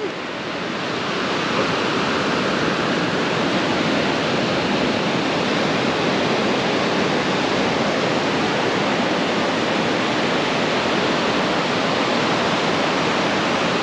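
Surf washing onto a sandy beach: a steady, even hiss.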